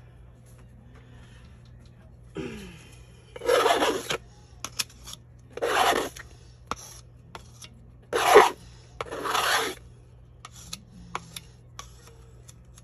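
Wet acrylic pour paint on a coaster being scraped and swiped with a tool in four rasping strokes of about half a second each, with a few light clicks between them.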